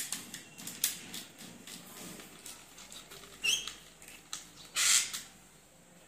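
Small clicks and scrapes of a screwdriver and wire against a plastic wall switch as a neutral wire is fastened into its terminal. A brief high squeak comes about three and a half seconds in, and a short, louder scrape about a second later.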